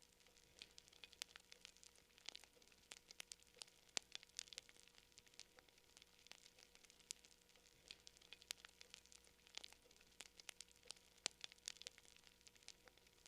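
Campfire burning with irregular crackles and pops, several a second, over a faint hiss.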